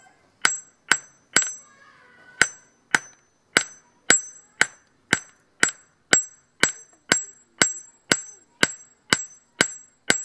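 Hand hammer forging hot steel on a steel-block anvil: about two blows a second, each a sharp clang with a high metallic ring, with a brief pause about a second and a half in.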